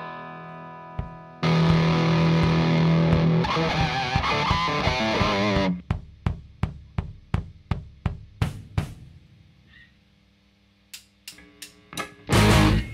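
Rock band intro in a practice room: distorted electric guitar chords ring out and are held, then give way to short stabbed chords at about four a second. After a brief near-quiet gap, a few drum hits lead the drums and full band in loudly near the end.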